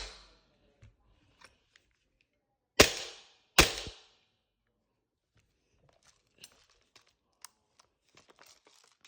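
Two airsoft gun shots about a second apart, each a sharp crack with a short trailing tail, followed by a few faint clicks.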